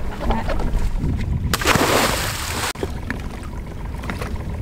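A splash as a snorkeler jumps into the sea: a loud rush of about a second that cuts off abruptly, over a low wind rumble on the microphone.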